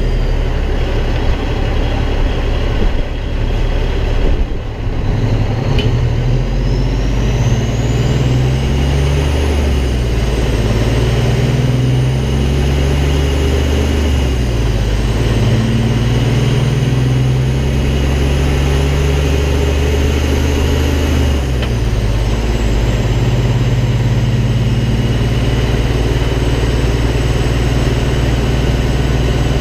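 Peterbilt semi truck's diesel engine accelerating through several gears: its pitch climbs in each gear and drops back at each shift, with a high whine that rises and falls along with it. A little over two-thirds of the way through, it settles into a steady cruise.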